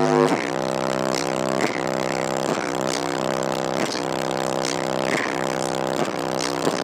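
Rap track played loud through a single 10-inch subwoofer, its bass note coming through as a steady buzzing drone with a beat about every two-thirds of a second.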